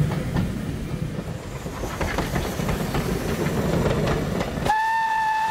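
A Stroudley Terrier tank engine's train passing close by, wheels clattering on the rail joints. About four and a half seconds in, the sound cuts to a steady single-note steam whistle, held.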